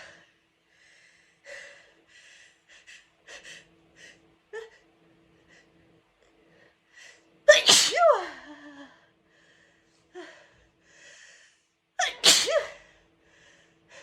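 A woman sneezing hard twice, the first about halfway through and the second near the end. Each sneeze has a loud voiced cry that falls in pitch. Before them come several short, faint, breathy sniffs as a sneeze builds.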